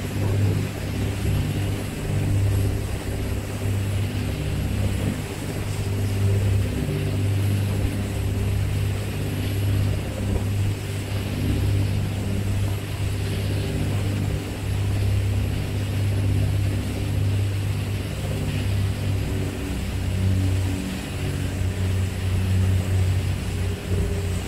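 A boat engine running steadily while under way: a continuous low drone with a hiss above it.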